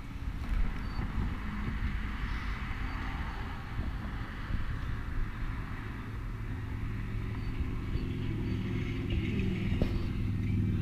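Road traffic passing: car engines and tyre noise swelling and fading, growing louder near the end, with wind rumbling on the microphone.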